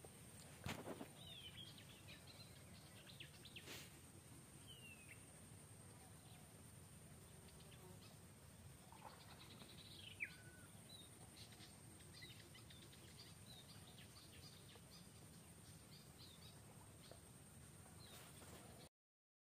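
Faint outdoor ambience: scattered bird chirps over a low background hiss and a steady high whine, with two brief clicks in the first few seconds. The sound cuts out suddenly just before the end.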